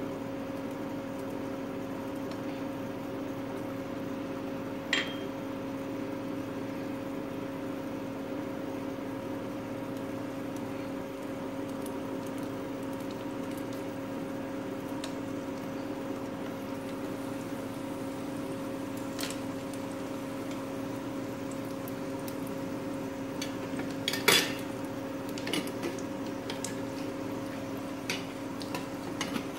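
A steady low hum runs throughout, with a few light clicks and taps, the sharpest about 24 seconds in, as garlic cloves are sliced with a small knife and the slices drop into a pan of oil.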